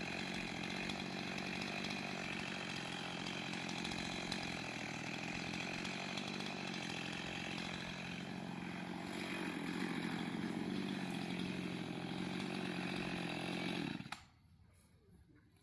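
Chainsaw running steadily, a little louder in its last few seconds, then cutting off suddenly near the end.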